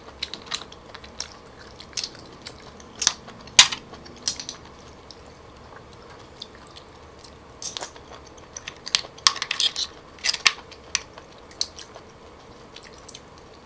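Close-up mouth sounds of chewing and biting cockle meat, with scattered sharp clicks and crunches as the shells are handled and pried open.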